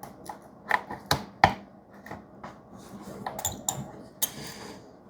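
A string of sharp clicks and knocks, the loudest about a second and a half in, from a knife and the parts of a Work Sharp guided knife sharpener being handled and set. A short scraping rustle comes about four seconds in.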